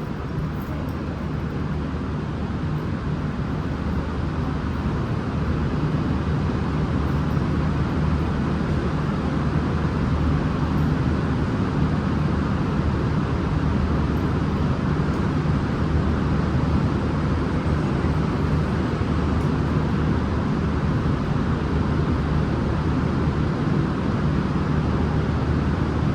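Steady low drone of diesel train engines running, growing a little louder over the first few seconds and then holding even.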